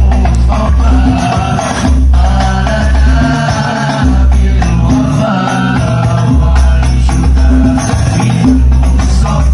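Banjari sholawat performance: voices chanting an Arabic devotional song over rebana frame drums, with deep, long-ringing bass drum strokes underneath.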